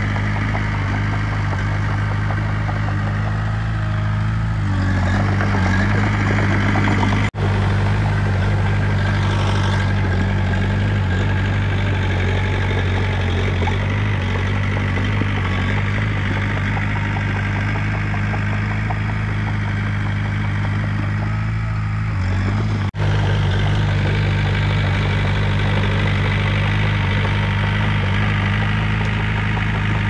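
Komatsu D20 bulldozer's diesel engine running steadily at a low, even pitch that wavers briefly a couple of times. The sound drops out for an instant twice.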